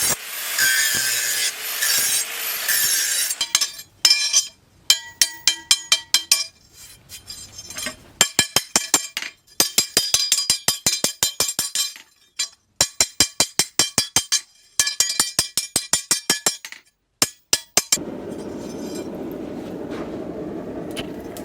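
Hammer blows on steel against an anvil, ringing metallically, coming in quick runs of several strikes with short pauses between. A hissing noise comes before the blows begin, and a steady low rushing noise takes over near the end.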